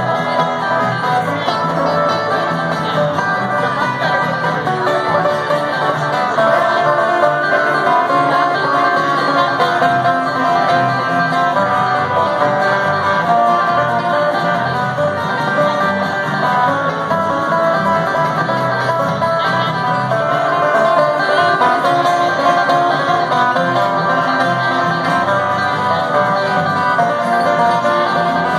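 Bluegrass tune played live on banjo, two acoustic guitars and electric bass guitar.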